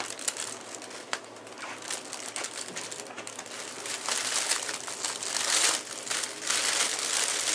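Rustling and crinkling noise with scattered clicks, growing louder about halfway through.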